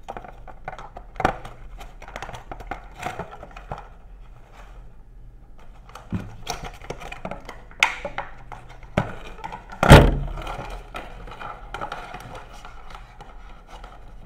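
Handling noise from unpacking a headset: a moulded plastic tray and packaging rustling and clicking as the earbuds and cable are pulled free, with one louder knock about ten seconds in.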